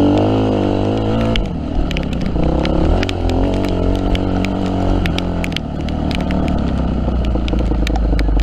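Yamaha WR250F's four-stroke single-cylinder engine running, its pitch rising and falling as the throttle is worked, with scattered sharp clicks.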